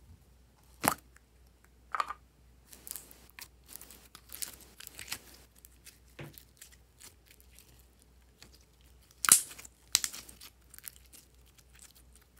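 Hands squeezing and pulling apart pieces of glossy slime, giving sticky crackling and a few sharp wet pops. The loudest pop comes about nine seconds in.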